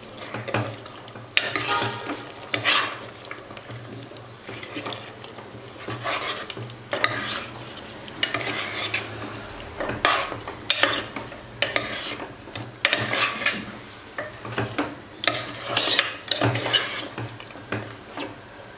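Metal ladle stirring a thick ground onion-tomato-coconut masala paste into chicken frying in a steel pot: repeated irregular scrapes and clinks against the pot, roughly one or two a second, over a light sizzle as the paste is sautéed.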